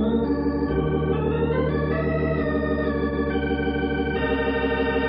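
Organ music bridge between scenes of an old-time radio drama: held chords with a quick wavering, moving to a new chord about three times.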